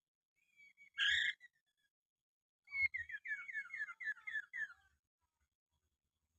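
Poksay mandarin, a laughingthrush, calling: one loud harsh note about a second in, then a rapid series of about eight falling whistled notes lasting around two seconds.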